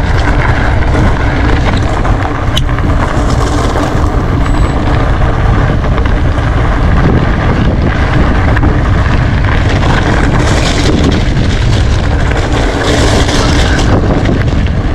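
Wind buffeting the microphone of a bike-mounted action camera, over mountain-bike tyres rolling on loose gravel on a fast descent. A few sharp clicks and knocks stand out from the steady noise.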